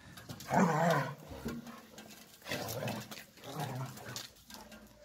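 Young German shepherd dogs growling while play-wrestling, in three short bursts; the first, about half a second in, is the loudest.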